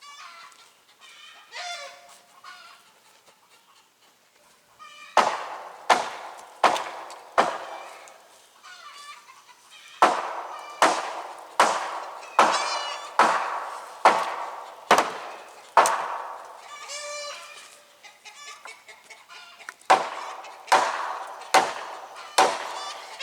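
Hammer blows on wooden deck boards during demolition, in runs of roughly one strike a second, starting about five seconds in and pausing twice.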